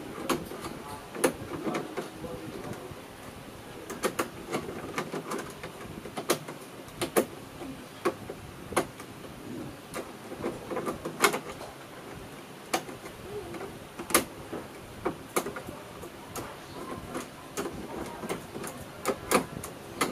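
Hands and a screwdriver working at the plastic inner body panel of a Honda Airblade 150 scooter: scattered sharp clicks and taps of plastic at irregular intervals.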